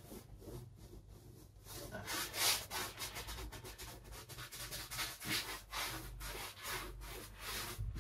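A worn flat paintbrush scrubbing oil paint onto canvas in rapid back-and-forth strokes: a dry, scratchy rubbing that starts a couple of seconds in.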